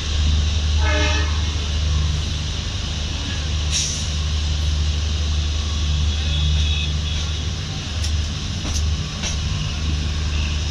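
Passenger train coach running along the track, heard through an open window: a steady low rumble of wheels on rail, with a few sharp clicks in the second half.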